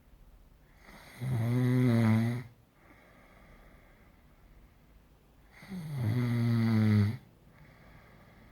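Snoring: two loud, drawn-out snores about four and a half seconds apart, each lasting about a second, with quiet breathing between them.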